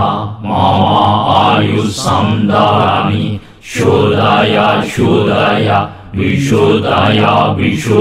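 A mantra chanted in a melodic line, in phrases of about three seconds, each separated by a brief pause.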